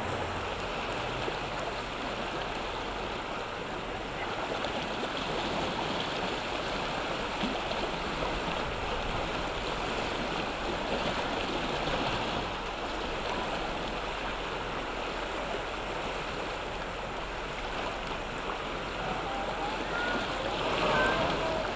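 Rushing whitewater of river rapids: a steady, even roar of churning water.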